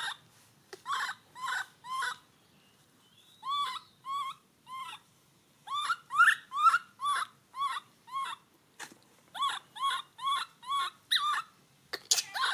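Baby macaque crying: a string of short chirping calls, each rising then falling in pitch, about two a second, in bouts with short pauses.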